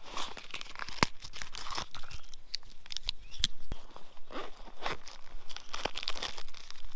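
Hands opening a nylon gear pouch and pulling out a shiny plastic-wrapped packet: a run of short tearing and crinkling sounds broken by sharp clicks.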